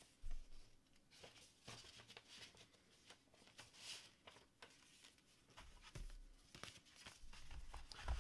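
Quiet handling of paper and card: sheets and a booklet rustling and sliding, with a few light knocks, the sharpest just after the start.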